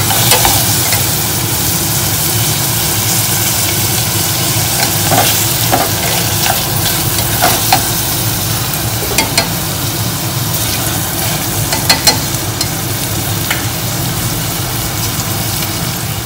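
Chopped tomatoes and shallots sizzling in hot oil in a pot while being stirred, the utensil knocking against the pot a few times, over a steady low hum.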